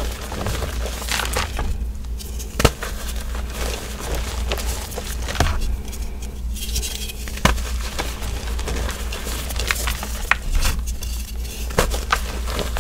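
Hands crushing reformed gym chalk blocks in a bucket of loose chalk powder: a steady crumbly crunching and crackling, with sharp snaps now and then as pieces break apart.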